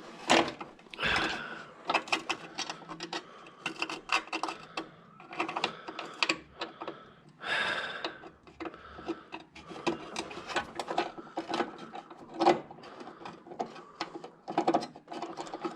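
Irregular clicking and tapping of small metal parts being handled and fitted by hand, in quick uneven runs.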